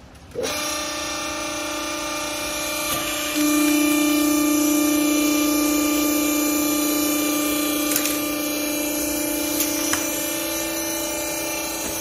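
Used-clothes baler's hydraulic power unit starting up and running with a steady hum, louder from about three and a half seconds in, with a few faint clicks.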